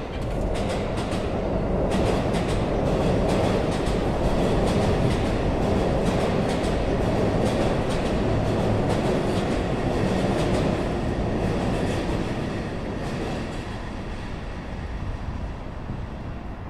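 A green-striped JR commuter electric train, an E233-series Yokohama Line set, passing along the tracks: a steady rumble with quick wheel clicks over the rail joints. It builds about two seconds in, holds, and fades over the last few seconds.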